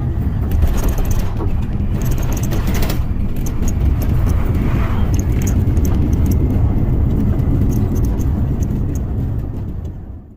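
Jet airliner heard from inside the cabin: a loud, steady engine and airflow rumble, with light rattles above it. It fades out near the end.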